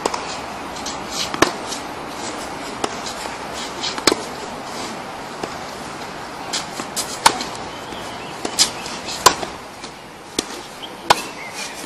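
Tennis ball struck by rackets during play: about ten sharp pops, roughly one every second or so, over a steady background hiss.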